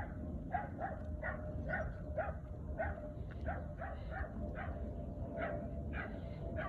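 A dog whining in short, repeated pitched cries, about two a second.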